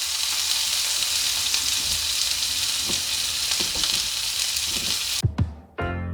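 Chicken quarters searing in hot olive oil in a frying pan: a steady sizzle with a few small knocks of the pan. The sizzle cuts off suddenly a little after five seconds in, and music begins just before the end.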